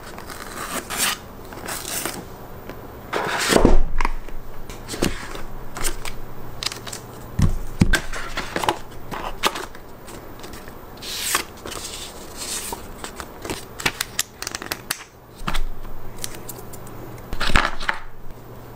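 Cardboard phone packaging being handled: the box lid and inner tray sliding and scraping, and a paper card rustling, in irregular scrapes and taps. A faint steady low hum runs underneath.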